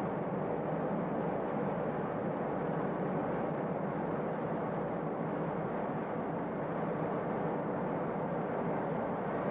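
B-52 bomber's jet engines in flight, a steady rushing drone with no change in pitch or level.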